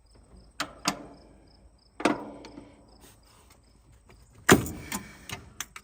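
A few sharp metallic knocks and clanks from tools and parts being handled, the loudest about four and a half seconds in, with small clicks after it. Crickets chirp faintly and steadily behind them.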